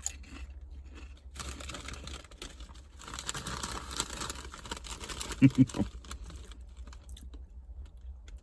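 Crunchy potato chips being bitten and chewed close to the microphone, a crackly crunching through the middle of the stretch. A couple of brief louder low sounds come about five and a half seconds in.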